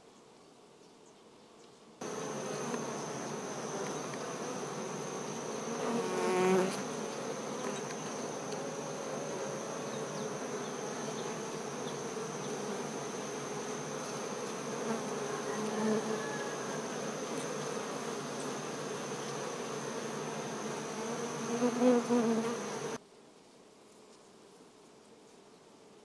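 Honey bees buzzing on the comb, a dense steady hum that starts about two seconds in and cuts off abruptly near the end. It swells louder briefly about six seconds in and again just before it stops.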